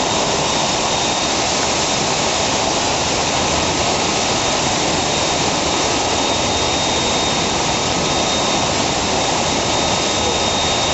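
Diving-pool air sparger running: compressed air bubbling up through the water, a steady loud rush of churning water. A faint steady high whine sits over it.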